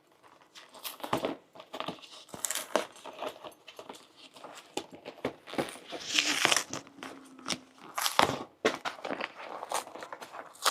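Cardboard shipping box being forced open by hand: an irregular run of tearing, crinkling and cracking sounds.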